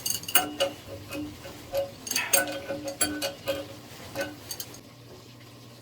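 An irregular run of light metallic clicks and clinks, metal fittings and a tool being handled on a sprinkler alarm valve's trim piping; the clinks stop after about four and a half seconds, leaving a faint low hum.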